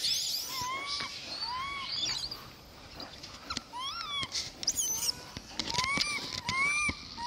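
Monkeys calling: short rising-and-falling calls repeated over and over, some in quick pairs, with thinner high-pitched squeaks mixed in and a brief lull about halfway through.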